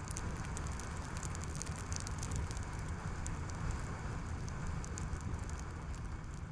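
Skoda Kodiaq driving on a road: a steady low rumble of tyre and road noise, with a fast, irregular crackle of small ticks on top.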